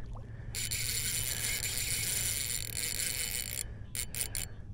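Spinning reel's drag slipping as a hooked redfish takes line: a fast, high-pitched ratcheting buzz that stops about three and a half seconds in, followed by a few short clicks.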